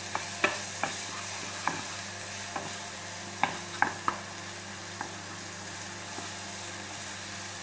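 Chopped onion, garlic and ginger sizzling in hot oil in a non-stick saucepan while a wooden spoon stirs them, knocking against the pan now and then. The knocks come mostly in the first five seconds, and the sizzle goes on steadily after them.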